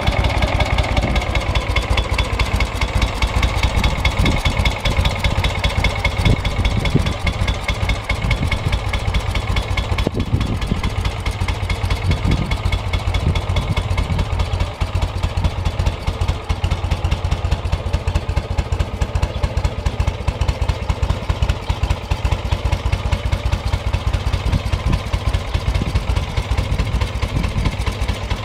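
Moto Guzzi V7 850 GT California's air-cooled 90-degree V-twin idling steadily, with an even exhaust beat.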